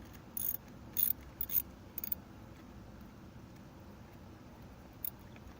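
Ratchet and spark plug socket backing out a loosened spark plug: a few short metallic clicks in the first two seconds, then one more near the end.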